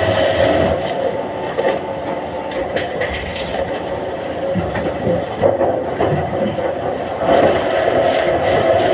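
Log-debarking mill machinery running steadily with a droning hum, with scattered knocks and clatter of logs being handled.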